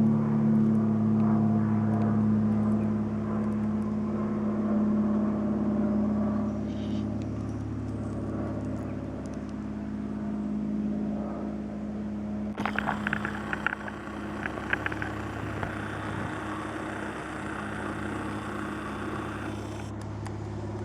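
RC model Cessna's motor and propeller running at a steady pitch. About two-thirds of the way through the sound changes, with a noisier rush and a run of crackles over the motor tone.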